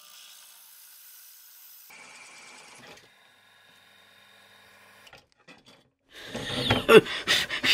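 Bench drill press running steadily and faintly, its 12mm metal-cutting twist bit boring through a metal sprocket and throwing off curling swarf. The machine sound fades lower about three seconds in. Near the end a much louder, uneven noise with sharp clicks comes in.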